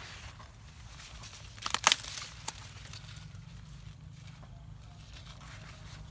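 A short burst of crackling, rustling noise about two seconds in, with a single click soon after, over a steady low hum.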